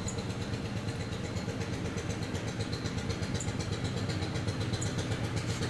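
A steady, low mechanical hum of an engine or motor running evenly at a constant speed.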